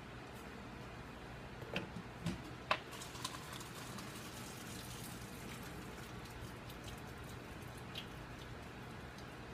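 A spatula scraping and tapping against a metal pot of shells and cheese, a handful of sharp clicks in quick succession and one more near the end, over a steady low hum.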